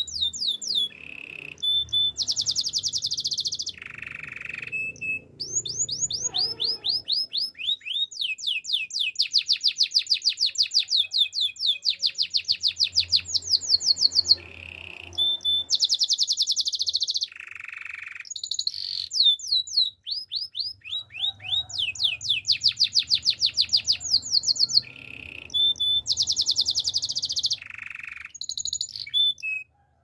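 Male canary singing: long runs of quick repeated falling notes, several a second, broken by short buzzy phrases and brief pauses.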